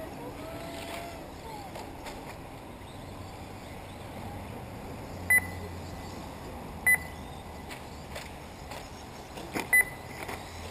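Electronic lap-counter beeps at an RC car race track: three short, high double beeps at uneven intervals, each marking a car crossing the timing line. Under them runs a steady background of outdoor track noise.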